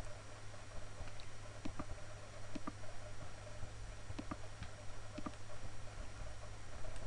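Computer mouse clicking, about a dozen scattered single and double clicks, over a steady low hum.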